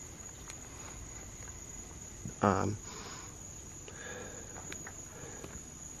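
Crickets trilling steadily in the night, one continuous high-pitched chorus. A man's short voiced sound cuts in briefly about halfway through.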